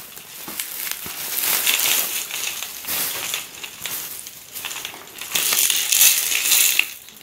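Plastic bubble wrap crinkling and rustling as it is pulled off a cardboard box, with a louder burst of crinkling about five to six seconds in.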